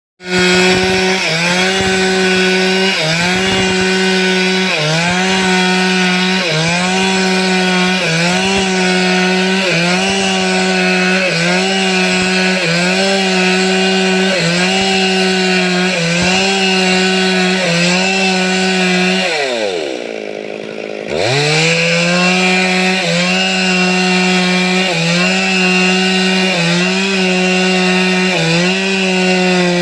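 Stihl two-stroke chainsaw running at high revs, its pitch dipping briefly about once a second. About nineteen seconds in the revs fall away almost to idle, then climb straight back up to full speed.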